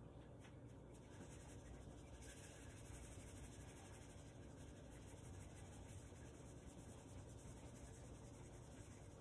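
Faint rubbing of a cleaning wipe on a stainless steel refrigerator door: a quiet, steady run of wiping strokes that grows a little brighter about two seconds in.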